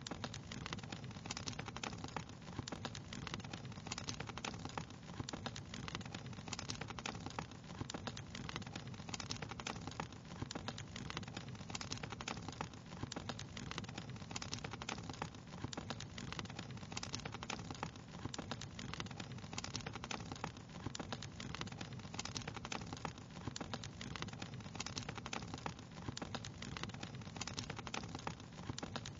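Wood fire crackling steadily: a dense run of small sharp pops and crackles over a low, even rumble of burning.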